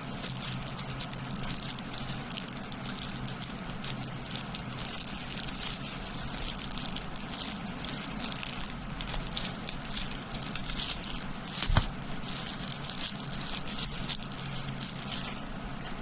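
Packaging being handled and unwrapped: continual rustling, crinkling and small clicks, with one louder knock about twelve seconds in, over a steady low hum.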